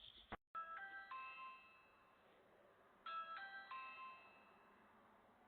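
Ring video doorbell chime sounding twice, each a quick run of a few bell-like notes that rings out and fades, about half a second in and again about three seconds in.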